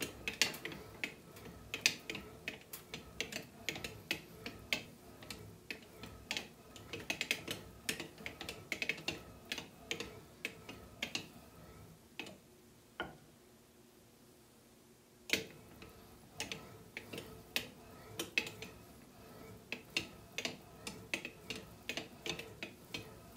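Composite slow-pitch softball bat (Miken Freak Primo Supermax) rolled back and forth by hand through a steel bat-rolling press, giving runs of sharp clicks and ticks. There is a pause of a few seconds about halfway through, broken by a single click.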